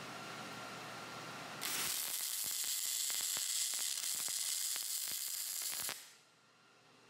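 Welding arc on aluminum: a loud, even hiss with crackling pops that starts about one and a half seconds in and cuts off abruptly about six seconds in.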